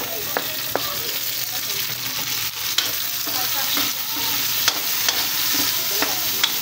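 Chopped garlic, ginger, onion and tomato sizzling in hot oil in a metal pan while a spatula stirs them, with several sharp clicks of the spatula against the pan.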